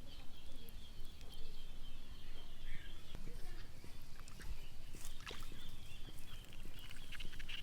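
Outdoor ambience by the water: a steady, high-pitched animal chorus runs over a low rumble, with scattered small clicks and taps, clustered about five seconds in.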